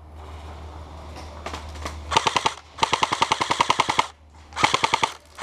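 Airsoft gun firing on full auto in three bursts of rapid clicking shots, about twelve a second: a short burst about two seconds in, a longer one of just over a second, and a short one near the end.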